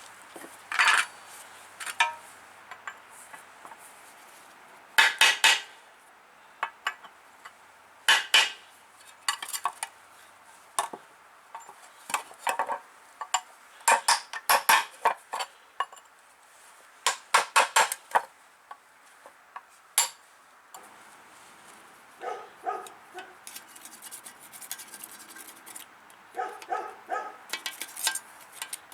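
Sharp metallic clinks and clanks in irregular clusters as a rusty steel WWII German folding shovel is handled and worked on.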